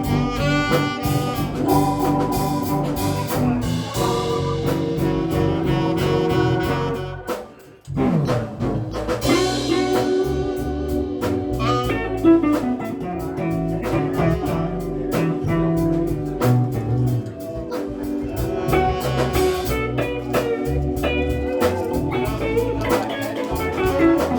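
Instrumental break in a blues song: guitar over drums, with no singing. The music drops out briefly about eight seconds in, then picks up again.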